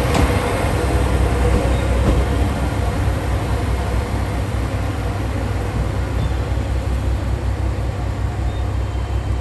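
KiRo 47 diesel railcar running as it pulls out, a steady low rumble that slowly eases. There is one sharp clack right at the start.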